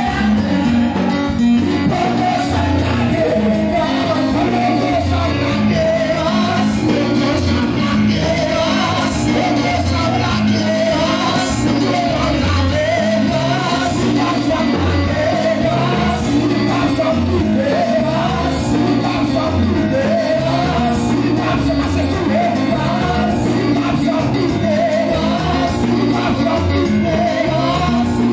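Live amplified worship music: a lead singer sings a fervent melody over a band with bass and a steady beat of drums and cymbals.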